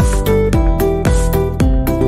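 Background music with a steady beat, about two drum hits a second, under held melodic notes.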